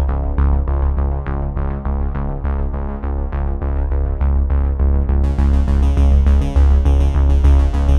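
Background electronic music: a synthesizer over a steady beat and heavy bass, turning brighter and fuller about five seconds in.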